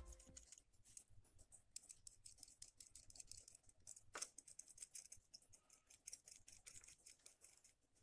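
Faint, quick, irregular scratching of a utility-knife blade scraping the coating off the broken ends of an aluminium winding wire on a washing machine spin-dryer motor, baring them for splicing. One scrape about four seconds in is a little louder than the rest.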